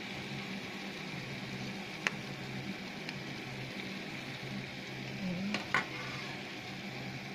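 Raw chicken pieces sizzling steadily in a little oil in a metal pan, being seared before any broth goes in. A few sharp ticks come about two seconds in and near six seconds, and a steady low hum runs underneath.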